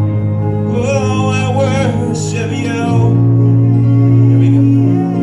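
Live gospel song: a vocalist sings a wavering melody line over sustained keyboard chords, and the chord changes to a fuller, deeper one about three seconds in.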